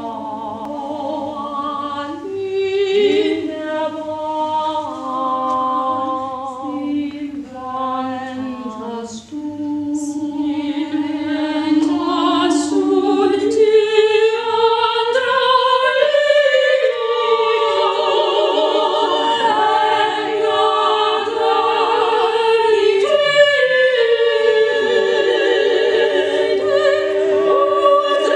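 Women's vocal ensemble singing a cappella in several parts, holding long chords. About a third of the way in the voices get louder and the lower part climbs in pitch.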